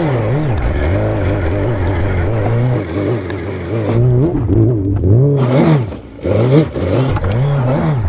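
Suzuki GSX-R1000 K2 superbike's inline-four engine revving hard as it climbs a rocky hill, the revs rising and falling over and over, with a brief dip about six seconds in.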